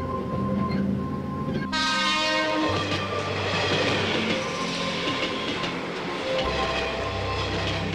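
Electric commuter train running past: a rush of rail and wheel noise that cuts in sharply about two seconds in and fades near the end, over soft background music with a steady bass line.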